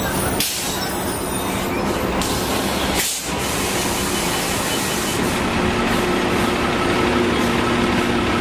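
City transit buses at a curbside stop: a New Flyer C40LF bus pulling in with engine and road noise under street traffic, then a steady low engine hum from the buses idling at the stop, which settles in about halfway through.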